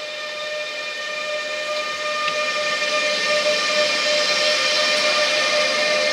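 A pair of Siemens Taurus electric locomotives (MRCE ES 64 U2, class 182) moving past at low speed: a steady electric whine with several overtones from their traction equipment, over a hiss of rolling noise that grows louder as the locomotives draw level.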